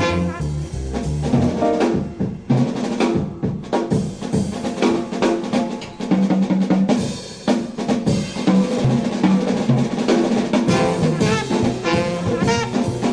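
1950s swing jazz background music, here in a drum-led passage with the drum kit to the fore over the bass; the melody instruments come back in near the end.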